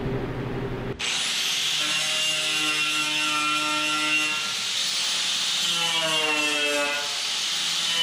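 Small hand-held rotary sander with a sanding disc grinding on the rusty sheet-steel fuel tank of a 1924 McCormick Deering 10-20, starting about a second in: a steady rasp with a whine that dips in pitch now and then as the disc is pressed to the metal.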